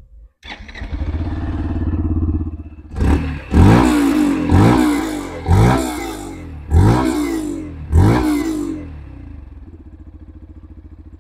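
Yamaha FZ-X's 149 cc air-cooled single-cylinder engine starting up and idling, then blipped five times in quick throttle revs, each a sharp rise and fall in pitch, before settling back to idle. Its exhaust note is much like the Yamaha FZ-S's.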